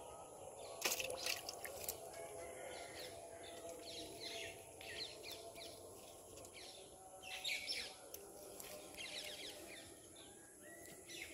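Small birds chirping over and over in short, falling high calls, over a steady outdoor background, with one sharp click about a second in.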